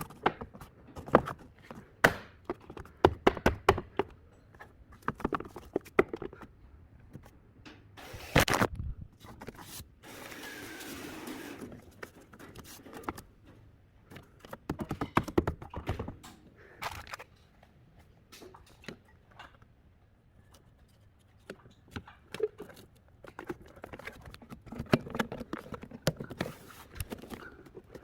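Hands working on a car's trunk interior to track down a rattle: scattered knocks, clicks and scrapes of trim and parts being handled, with about two seconds of steady noise about ten seconds in.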